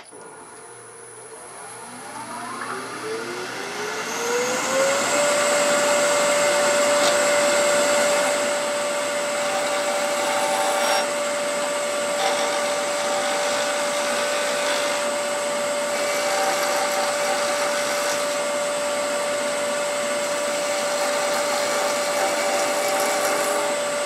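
A wood lathe's motor spins up over the first few seconds, its whine rising in pitch, then holds a steady whine. Over it a turning tool rounds off a small square blank of Macassar ebony, a continuous rough hiss of cutting.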